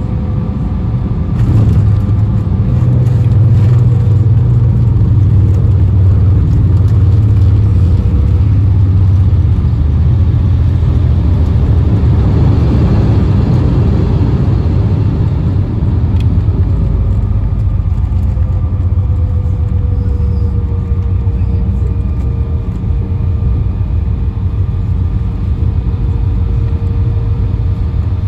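Cabin noise inside a taxiing Embraer E175 regional jet: a steady low rumble from its engines and rolling gear, with a faint steady whine. The rumble grows louder about a second and a half in and eases off after about ten seconds.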